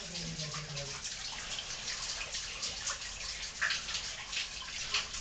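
Water running and dripping inside a cave: a steady wash of water with many separate drips spattering throughout.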